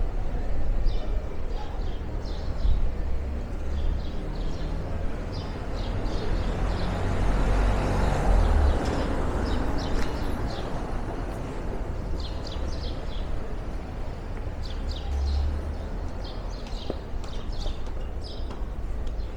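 Town street ambience: a steady low traffic rumble, with a vehicle passing that is loudest about eight seconds in, and short high chirps scattered throughout.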